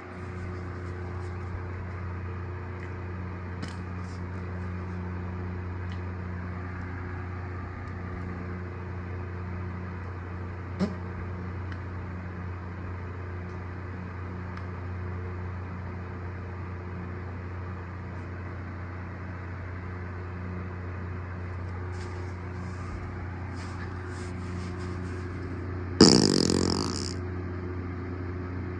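A steady low hum throughout. About 26 seconds in comes a single loud fart that starts sharply and dies away over about a second, and there is a small click near 11 seconds.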